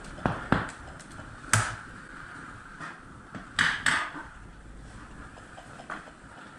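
Scattered airsoft gunfire: isolated sharp cracks and knocks a second or more apart, with a louder pair about three and a half seconds in.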